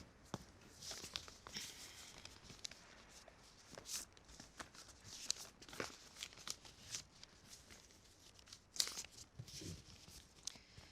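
Faint, scattered rustling with small clicks and taps of handling, with a slightly louder cluster about nine seconds in.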